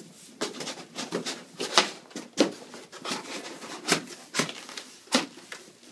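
Corrugated cardboard being handled and folded: an irregular series of sharp scrapes and knocks as the flaps and tabs of a cardboard box are pushed into place inside its end.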